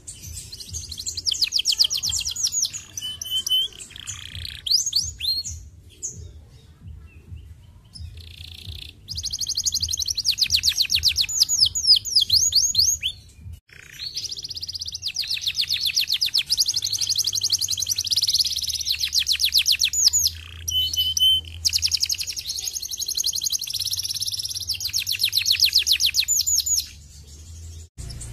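Domestic canary singing long, fast trills of rapidly repeated notes, in phrases broken by short pauses.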